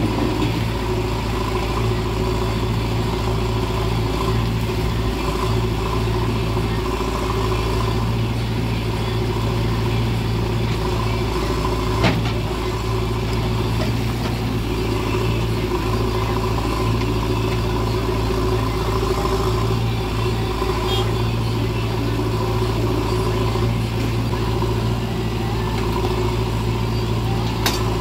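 Diesel engines of a JCB 3DX backhoe loader and a farm tractor running steadily while the backhoe digs and loads soil, a continuous low drone. A single sharp knock comes about twelve seconds in.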